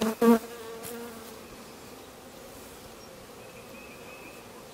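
Honey bees buzzing around an open hive: a loud buzz twice in the first half-second as a bee comes close, then a fainter steady drone of flying bees.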